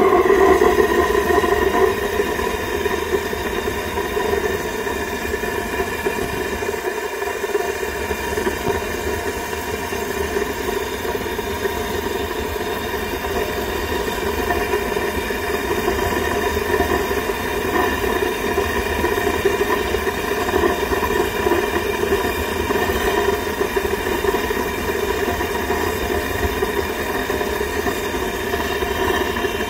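Waste-oil burner firing into a furnace, running with a steady, even sound and several held tones. It is a little louder for the first second or two, then settles.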